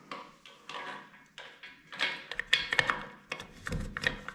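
Irregular clicks and knocks of small hard toilet fittings being handled and fastened by hand, busier and louder from about two seconds in.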